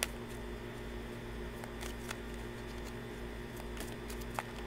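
A deck of oversized tarot cards being shuffled by hand, giving a few brief sharp clicks as cards slip from one hand into the other, over a steady low hum.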